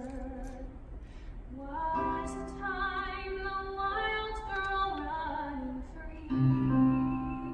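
A woman singing a slow, sustained show-tune melody with instrumental accompaniment. A lower, louder held note comes in about six seconds in.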